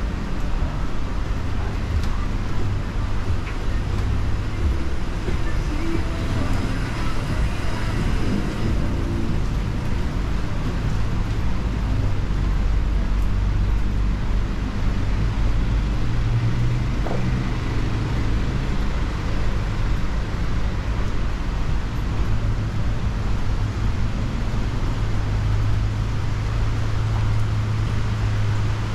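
City road traffic: a steady low rumble of vehicle engines and tyres.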